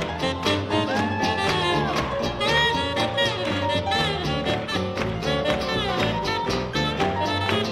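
Live swing jazz band playing an up-tempo tune with upright bass, drums and saxophone, a steady beat throughout.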